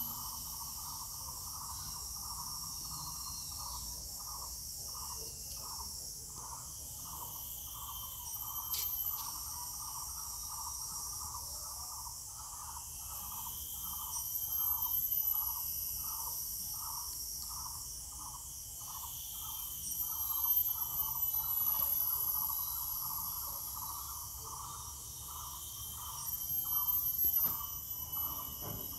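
Outdoor insects trilling steadily at a high pitch, with a lower call pulsing just under twice a second.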